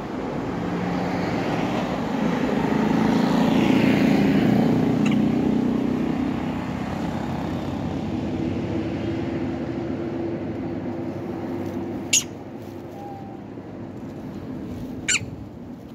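A car passing along the road, its engine and tyre noise swelling to its loudest about four seconds in, then fading into a steady engine hum. Two sharp clicks come near the end.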